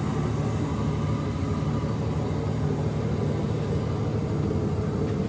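Ford 6.4 L Power Stroke V8 turbo diesel idling with a steady low rumble, running again with its twin turbochargers freshly reinstalled.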